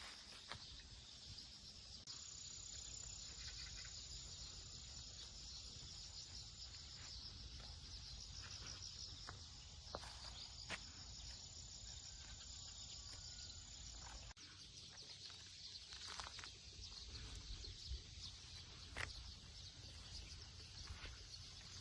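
Faint insect chorus: steady high-pitched chirring, with an even higher continuous trill from about two seconds in until about fourteen seconds. A low rumble and a few light ticks run beneath it.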